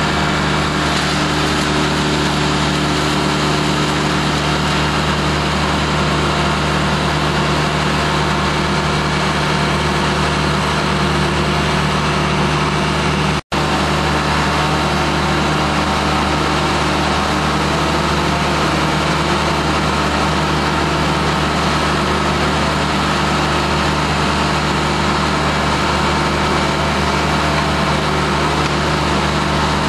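A large engine running steadily at idle, with no rise or fall in speed; the sound cuts out for an instant about thirteen seconds in.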